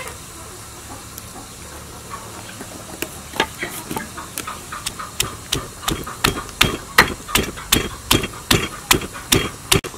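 Pestle pounding red chillies and garlic in a mortar: a run of sharp knocks, about three a second, starting about three seconds in and getting louder.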